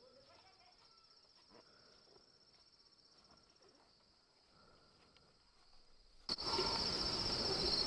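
Insects chirring steadily in a high, pulsing drone, faint with a few soft knocks at first. About six seconds in it turns abruptly much louder, with a dense rustling noise underneath.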